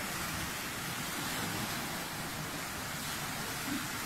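Swimming pool water sloshing in waves and spilling over the pool edge, a steady rushing wash, the pool shaken by a strong earthquake.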